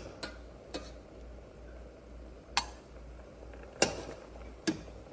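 Kitchen utensil clinking against the pot and bowl as cooked honey dates are scooped out, about five sharp, separate clinks. The loudest come about two and a half and four seconds in.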